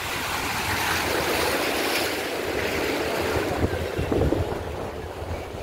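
Sea surf breaking and washing up the beach, a steady rushing noise that swells about a second in, with wind buffeting the microphone in uneven low thumps near the end.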